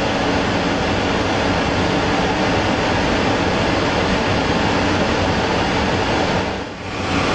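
A loud, steady rushing noise with a low hum underneath, dipping briefly near the end.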